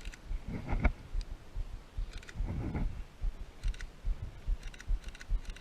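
Handling noise: irregular low bumps and two short rustles, with a few faint clicks.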